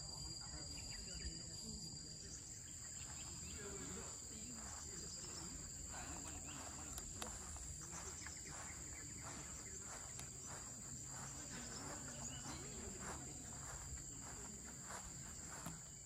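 Steady, high-pitched chorus of insects holding two constant tones, with faint irregular short sounds over it.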